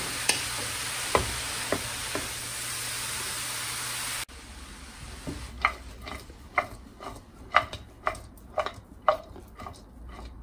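Grated carrots sizzling in ghee as a wooden spatula stirs them, with a few scrapes against the pan. About four seconds in the sizzle drops away abruptly, and the spatula scrapes and knocks against the pan in a steady rhythm, about two strokes a second.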